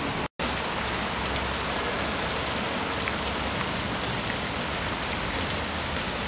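Steady rushing hiss of outdoor city ambience, with a brief dropout about a third of a second in.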